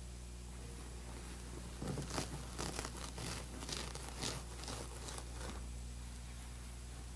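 Leather upholstery cover rustling and crinkling as hands fold and press its tufted pleats, in a run of short rubs from about two seconds in until about five and a half seconds in, over a steady low hum.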